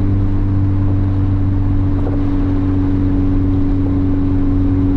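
Turbo Honda hatchback's engine and straight-piped 2.5-inch downpipe exhaust with a Vibrant resonator, heard from inside the cabin. The engine runs at a steady speed with a constant low drone.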